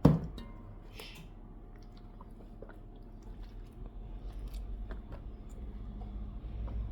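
A person chewing food, with small scattered clicks over a low rumble that grows from about three seconds in.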